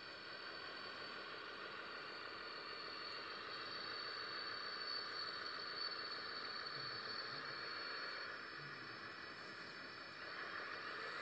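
Electric motor and hydraulic pump of a remote-control model wheel loader running under load as it carries a boulder: a steady whine with hiss and a thin high tone, and no diesel rumble.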